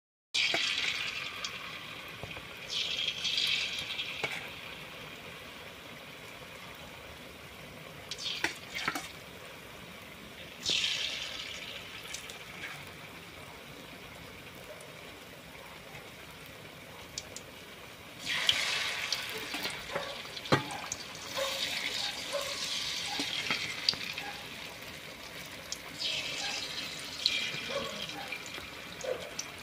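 Battered saba banana fritters deep-frying in hot oil in a wok: a steady sizzle that swells louder several times, with a few short clicks.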